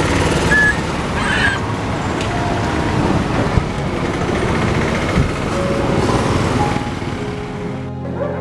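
Steady street traffic noise, with a couple of short, high cries in the first two seconds from an injured puppy as it is lifted: cries of pain from a pelvis injury. The traffic noise cuts off near the end.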